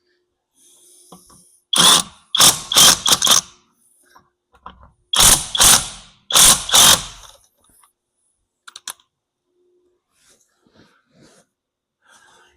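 A wrench working on a car's wheel nut: two spells of short, loud mechanical rattling strokes, a few seconds apart, with faint clicks of tools around them.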